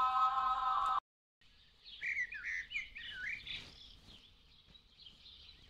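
Music with held notes cuts off abruptly about a second in. Small birds then chirp in quick, rising-and-falling warbled calls, a cluster of them mid-way and fainter ones after.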